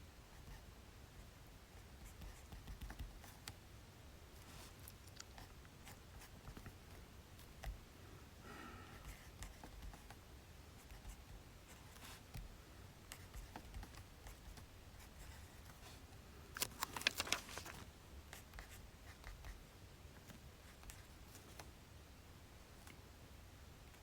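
Pen writing on paper: faint, scattered scratching strokes and light taps. A brief squeak comes about a third of the way in, and a quick run of louder clicks follows about two-thirds of the way through.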